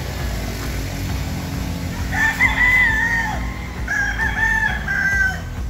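Rooster crowing twice, the first crow about two seconds in and the second about a second later.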